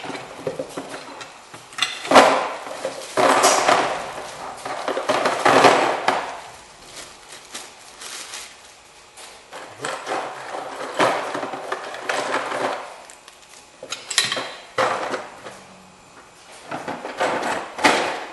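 Small metal drum-brake hardware (springs, pins and clips from a new hardware kit) clinking and rattling as it is tipped into a box and handled, in repeated bursts of clatter.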